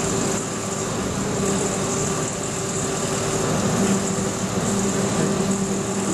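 Larix 3T short-distance cable yarder running: a steady engine hum at an even pitch with a high whine over it.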